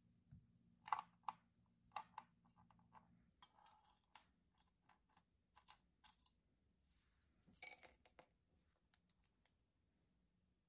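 Faint, irregular light clicks and taps of small handling sounds, with a brief denser cluster with a little rustle about eight seconds in.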